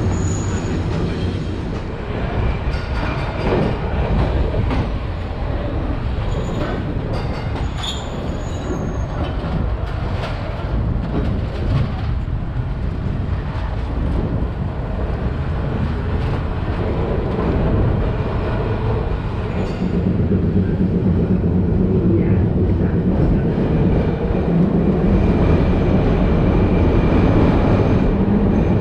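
Vintage Milan tram running along street track on Line 1, heard on board: a steady rumble of wheels and running gear, with a few brief high wheel squeals in the first several seconds, growing louder near the end.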